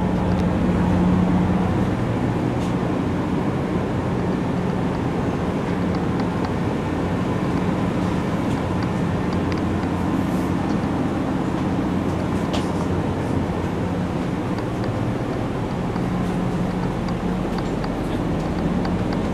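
Steady mechanical drone: a constant low hum over an even rush of air-like noise.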